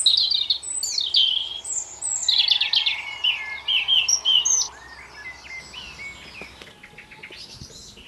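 Songbird singing a quick run of varied high chirps and trills. The song is loud for the first four and a half seconds, then much fainter.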